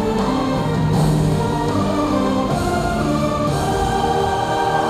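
Fireworks-show soundtrack music with a choir singing held notes, the chords changing every second or so.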